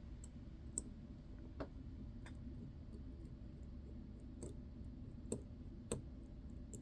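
Faint, irregular clicks and taps of a small screwdriver on the metal parts of a watch movement, about ten scattered sharp ticks over several seconds.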